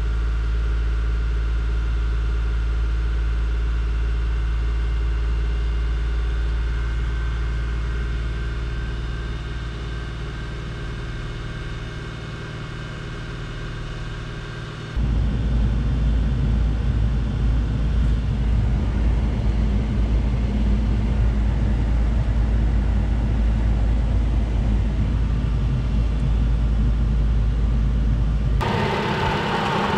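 Subaru Outback's engine idling steadily, heard from inside the cabin as a low, even hum, while it warms up after a coolant refill. About halfway through, the sound abruptly becomes louder and rougher.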